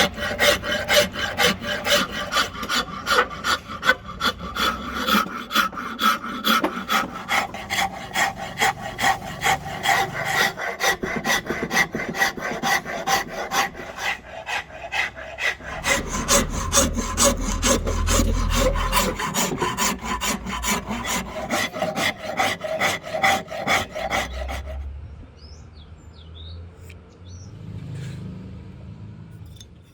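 Wood rasp working a rosewood axe handle by hand, steady scraping strokes at about two a second. The strokes stop about 25 seconds in, leaving quieter handling with a few faint clicks.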